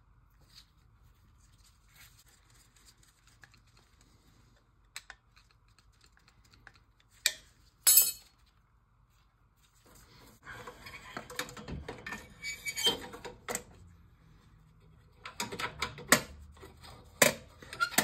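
Small metal parts and tools clinking and clattering as an oil burner's electrode and nozzle assembly is worked on. Two sharp clicks come about seven and eight seconds in, then bursts of rattling and clinking from about ten seconds in and again near the end.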